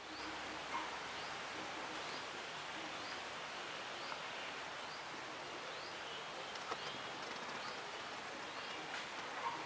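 Steady outdoor background hiss with a short, high rising chirp repeating about once a second, and a few faint clicks.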